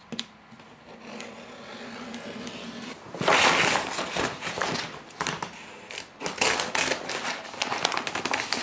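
Blue woven-plastic IKEA bag rustling and crinkling as it is handled and spread flat, loudest about three seconds in and then in many quick crackles. Before that, a softer steady scraping of a rotary cutter rolling through fabric along a ruler.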